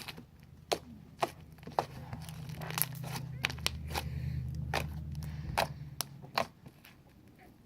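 Slime being squeezed and stretched by hand, making a series of sharp wet pops and clicks. A steady low hum runs underneath for a few seconds in the middle.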